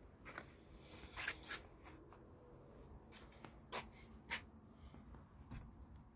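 Faint handling noise: about five short, dry scrapes and rustles over quiet room tone.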